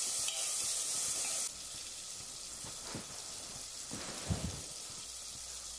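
Chopped tomatoes and onions sizzling in hot oil in an aluminium pressure cooker: a steady hiss that turns quieter about a second and a half in. A couple of soft knocks come later.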